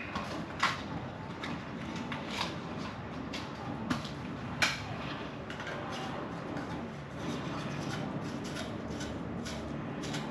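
A few sharp clicks and taps of light bulbs being handled and screwed into the sockets of a ceiling fan's light kit, the loudest about half a second and four and a half seconds in, over steady low background noise.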